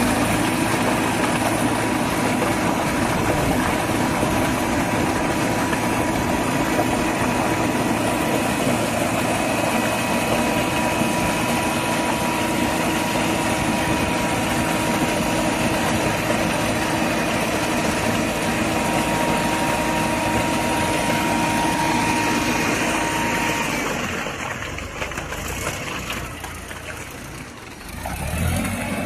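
A mobile concrete mixer's engine running steadily with a thin, constant whine over it. Most of the way through, the sound falls off and turns quieter and uneven, then briefly rises again near the end.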